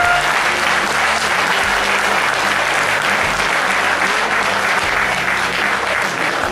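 Stadium crowd applauding and cheering, a dense, steady wash of noise.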